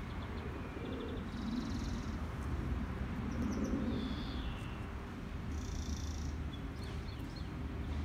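Outdoor ambience: a steady low rumble, with short, high buzzy bird chirps about three times.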